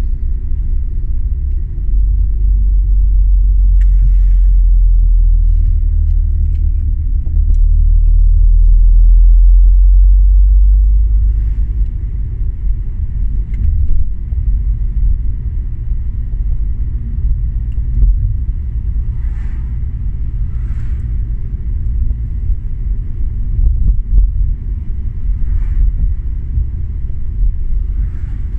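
Low, steady rumble of a car's engine and tyres heard from inside the cabin while driving, loudest for the first ten seconds or so, then lower and rougher.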